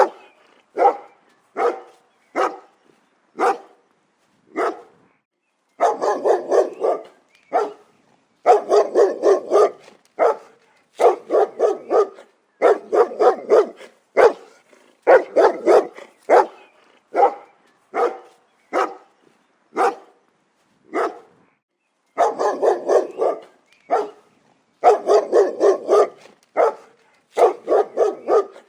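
A dog barking repeatedly, sometimes single barks and sometimes quick runs of several, with short pauses between.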